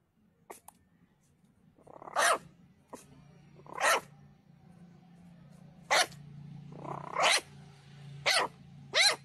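Young puppy yapping: six short, high barks a second or two apart, coming quicker toward the end.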